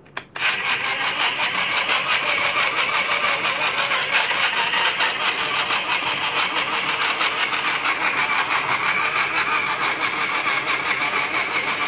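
A toy food processor's small electric motor switched on with a click, then running steadily with a fast, even rattle as it churns slime in its bowl.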